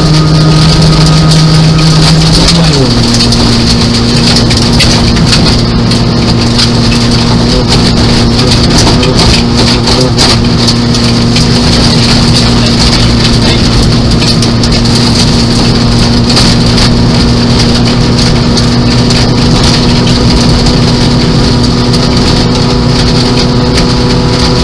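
Nissan Micra 1.0 rally car's engine heard from inside the cabin at speed on gravel. Its note drops about two and a half seconds in, then holds steady, under loud, constant crackle of gravel and water hitting the car's underside.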